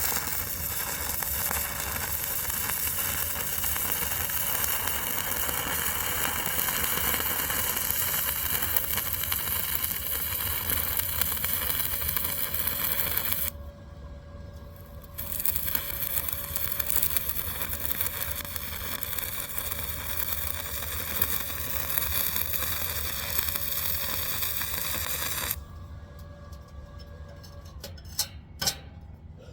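Stick welding arc crackling steadily as a bead is laid. The arc breaks off for about two seconds around the middle and is struck again, then stops a few seconds before the end, followed by a few faint clicks.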